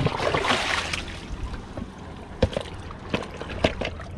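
Sea water washing and gurgling against shoreline rocks, loudest in the first second, with a few sharp knocks over a steady low rumble.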